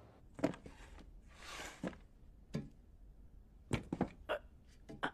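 Scattered soft knocks and bumps of a person climbing into and moving through a ceiling crawlspace, with a short rushing noise about a second and a half in.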